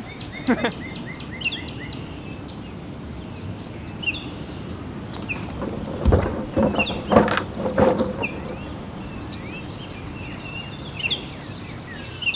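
Birds chirping in short, scattered calls over a steady hiss of insects and distant city traffic at the edge of a rainforest. A few louder knocks come about halfway through.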